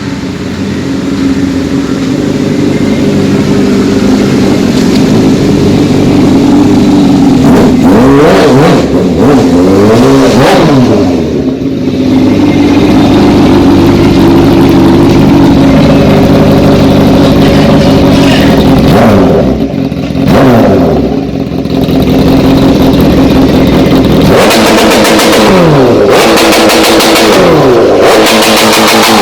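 Honda CBR1000RR's inline-four engine idling and being revved by throttle blips: a few quick rises and falls in pitch about eight to eleven seconds in, and a rapid run of repeated revs over the last five seconds.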